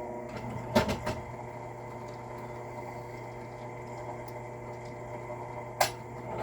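Objects being handled on a reloading bench: two sharp clacks about a second in and another near the end, over a steady electrical hum.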